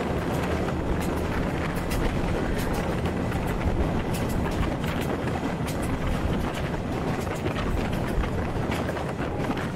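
Passenger train running along the track, heard from aboard: a steady rumble of the carriage with frequent irregular clicks.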